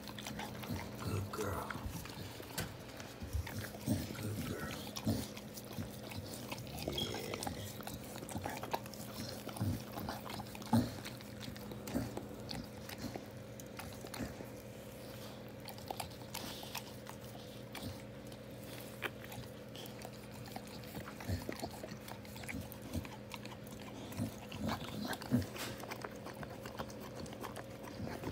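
Pit bull mother licking and nosing her newborn puppies: scattered short wet licking and sniffing sounds over a steady low hum.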